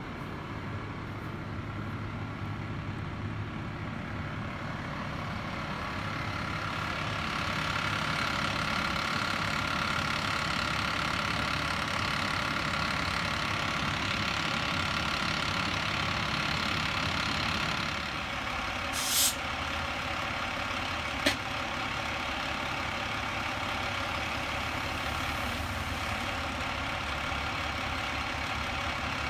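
Truck engines running: a flatbed tow truck drives past, getting louder through the middle, then a steady engine idle. A short loud hiss comes about 19 seconds in, and a single sharp click two seconds later.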